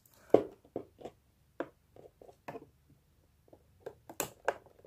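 Scattered short clicks, taps and rustles of hands handling a plastic model horse in its cardboard box and plastic wrapping, working it free of the packaging.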